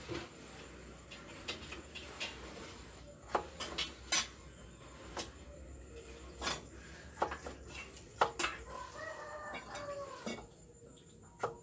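Small kitchen knife chopping food, its blade clicking sharply and irregularly against the surface below. A chicken calls once, about nine seconds in.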